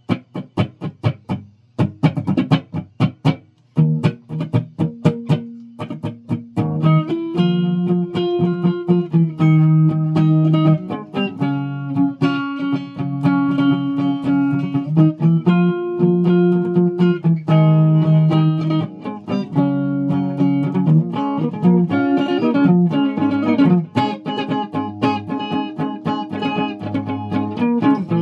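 Guitar being played: quick separate plucked notes for the first six seconds or so, then a continuous run of held notes and chords that change every second or two.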